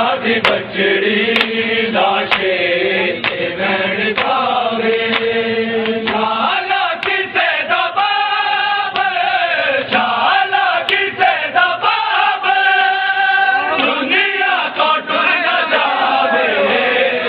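A group of male mourners chanting a noha (lament) together, with sharp slaps of chest-beating (matam) about once a second in the first few seconds and scattered later.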